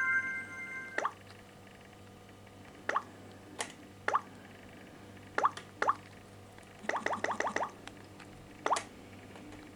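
A phone alarm tone stops about a second in. Then come the Samsung Galaxy S3's water-drop touch sounds: single short plops, each dropping in pitch, spaced irregularly as the screen is tapped, with a quick run of about six later on.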